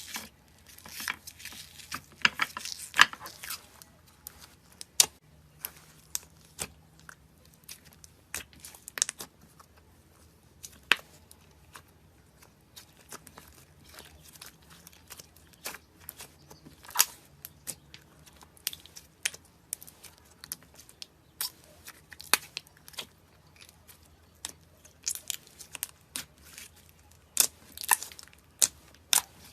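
Slime being squeezed, stretched and poked by hand, giving irregular sharp clicks, pops and crackles, thicker near the start and again near the end.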